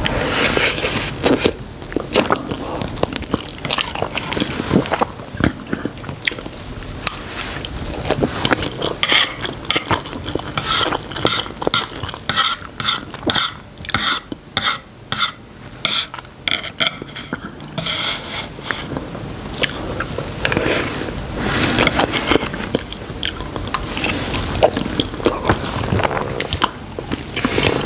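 Close, clip-on-microphone chewing of a mouthful of instant black bean noodles (Chapagetti jjajangmyeon), with a steady run of chews, two or three a second, in the middle.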